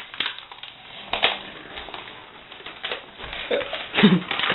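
Paper towel crinkling and rustling as it is rubbed and pressed over a face, with irregular crackles and clicks.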